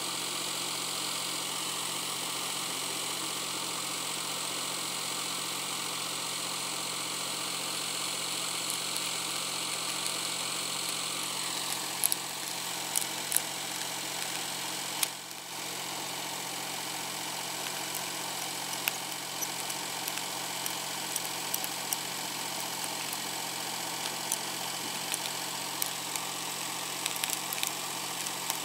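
An engine running steadily. From about twelve seconds in, sharp metallic clicks and taps come from pliers working the metal fastener of a flat drive belt.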